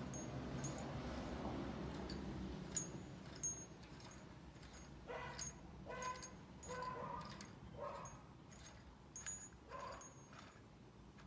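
Faint metal clicks and clinks of a harmonic balancer install tool's threaded rod and washers being turned by hand into the crankshaft snout. A few short, high whining squeaks come in the second half.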